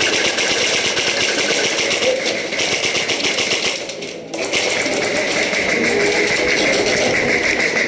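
Airsoft guns firing full-auto, a fast rattle of shots, with a brief lull about four seconds in.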